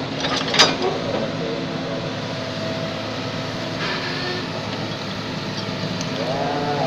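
Excavator's diesel engine running steadily under load, with a sharp metallic clank about half a second in.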